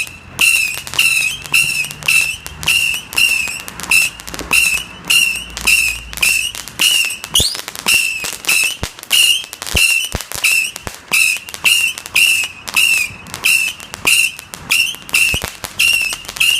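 A 100-shot Screaming Demons repeating firework cake firing whistling shots in a steady rhythm, about two a second. Each shot is a short, shrill scream with a crackle. It is crazily loud.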